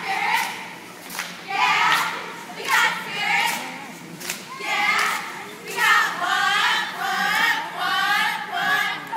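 Cheerleading squad of girls shouting a cheer together in short, rhythmic phrases, with sharp claps between the lines.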